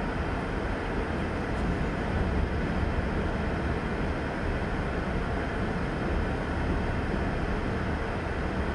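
CSX freight train's covered hopper cars rolling past, a steady rumble of steel wheels on rail, heard from inside a car.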